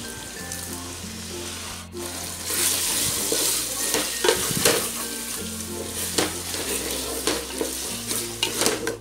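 Onions and tomatoes frying in oil in an aluminium pot, sizzling, while a spatula stirs them and scrapes and knocks against the pot, louder from about two and a half seconds in.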